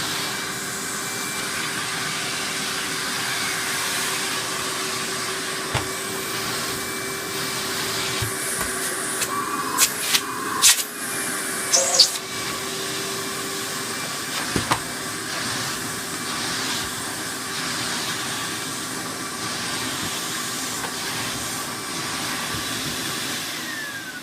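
Premier Mini 175 cylinder vacuum cleaner, fitted with a Numatic twin-flow motor, running steadily with a constant whine while vacuuming, with a few sharp clicks and knocks about ten to twelve seconds in. Near the end it is switched off and the motor starts to wind down, its pitch falling.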